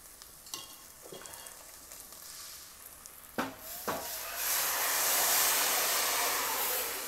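Spiced oil tempering sizzling softly in an aluminium pressure cooker, with a few light clinks of a metal spoon. About three and a half seconds in come two knocks, then water poured into the hot oil sets off a loud hissing sizzle of steam.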